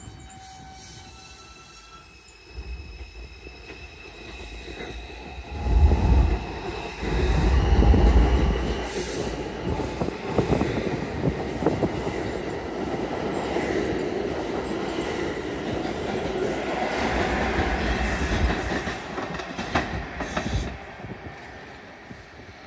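R142 subway train pulling out of the station. Its motors give a whine in steps as it starts off, then the cars rumble and clack past on the rails, loudest about six to nine seconds in, and the sound fades near the end as the train leaves.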